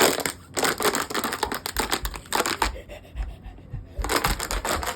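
Close rustling and crackling handling noise in irregular bursts, with soft low thumps in the second half.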